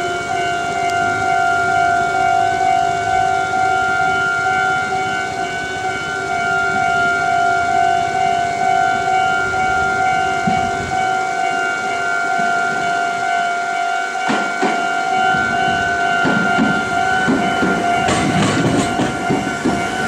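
Japanese railway level-crossing warning bell ringing steadily. About 18 seconds in, a Meitetsu 3300-series and 3100-series express train arrives over the crossing, its wheels clattering over the rails beneath the bell.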